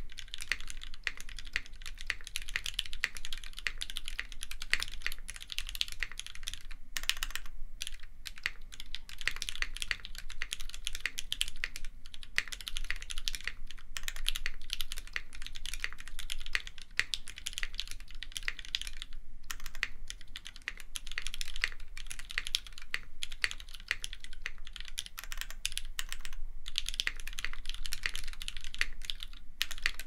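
Fast, continuous typing on a Sirius mechanical keyboard with lubed Gateron Yellow linear switches, a POM plate and GMK keycaps: a dense run of keystrokes. The typing breaks off briefly about 7 seconds in and again about 20 seconds in.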